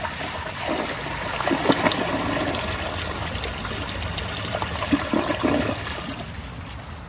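Kohler Wellworth toilet refilling after a flush: water running and trickling into the tank and bowl, slowly fading.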